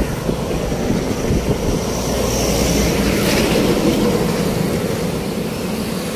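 Road traffic passing close by: a steady low rumble of engines and tyres that swells slightly in the middle.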